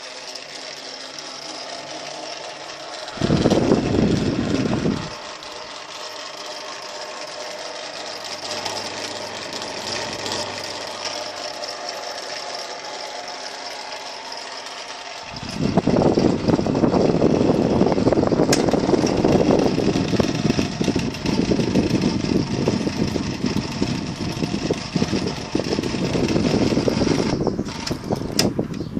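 Vintage General Electric Vortalex electric fan running on 110 volts, a steady motor hum with a hiss of moving air. Briefly about three seconds in, and again from about halfway to near the end, a much louder rough, rattling rumble covers it.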